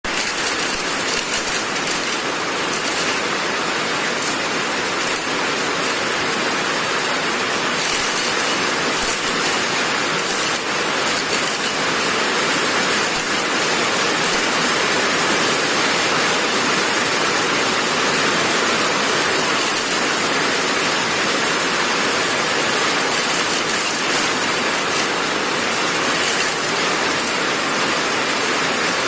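Coconut shell-removing machine running, a loud, steady, dense mechanical noise without breaks.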